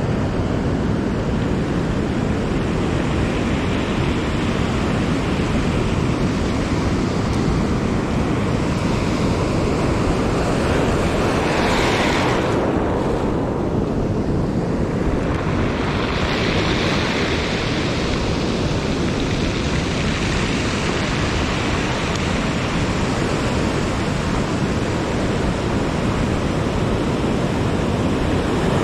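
Ocean surf breaking and washing up a gravel beach, a steady roar with a louder wave surging in about midway, and wind rumbling on the microphone.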